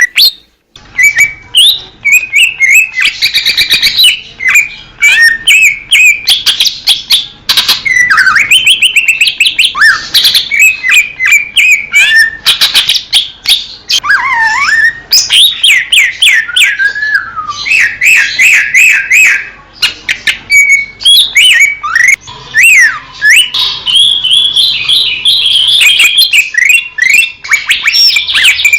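Green leafbird (cucak ijo) singing a loud, fast, varied song of whistled glides and chattering phrases, almost without pause.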